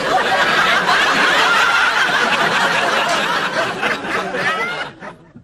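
Studio audience laughing loudly, a dense mass of many overlapping laughs that fades away near the end.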